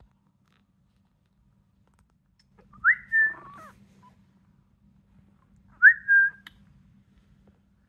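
Two-week-old Chihuahua puppy giving two high-pitched cries about three seconds apart, each a quick upward squeak running into a short held note.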